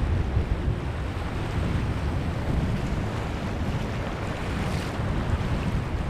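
Small waves washing up a sandy beach and spreading foam over the sand: a steady rush of surf, with wind buffeting the microphone as a low rumble.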